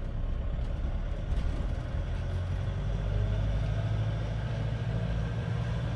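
Motor vehicle engine running steadily, a low hum that swells slightly a few seconds in.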